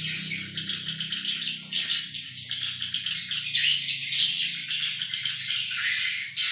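Swiftlets chirping and twittering in a dense, rapid, continuous high-pitched chatter, with a low hum underneath that fades out over the first few seconds.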